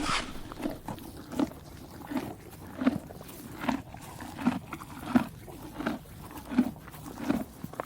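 Horse chewing hay: a steady crunching chew, about three chews every two seconds.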